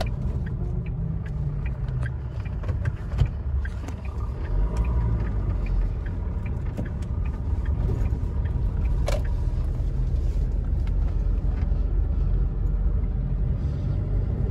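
Low rumble of a car's engine and tyres heard from inside the cabin while driving. A light, evenly spaced ticking runs through roughly the first half, with a single sharp knock about three seconds in.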